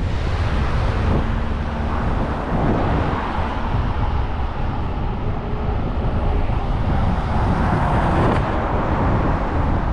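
Wind rushing over a GoPro HERO12 microphone while cycling: a loud, steady low rumble, mixed with the sound of road traffic.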